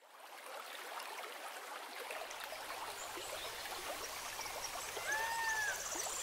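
Water trickling and running like a stream, fading in from silence at the start, full of small drips and splashes. About five seconds in, a single drawn-out bird call rises and falls.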